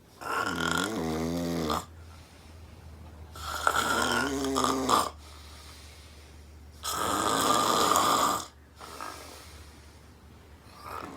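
A woman snoring very loudly while asleep: three long, rasping, pitched snores about three and a half seconds apart, followed by a quieter stretch near the end.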